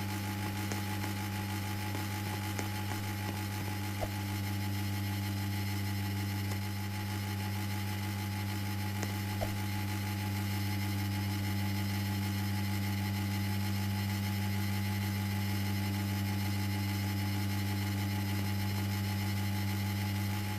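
Electric fan running steadily, its motor giving a steady low hum over a faint whoosh of air, with a couple of faint ticks.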